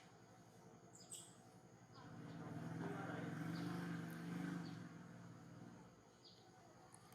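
Birds chirping briefly a few times over a low steady hum that grows louder in the middle and then fades away.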